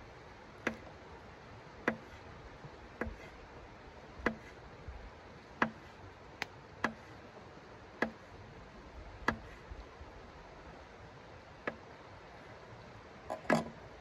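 Sharp knocks on a hard camp tabletop as something is worked on it by hand, about ten in all, one every second or so, with a quick double knock near the end.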